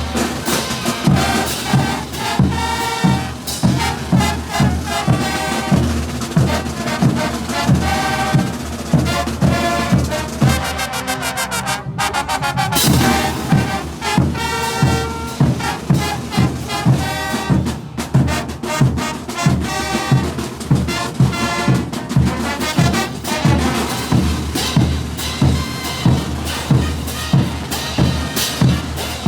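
Bolivian brass band playing a morenada: trumpets and trombones carry the melody over a steady, heavy bass-drum beat. The drums drop out briefly near the middle, then come back in.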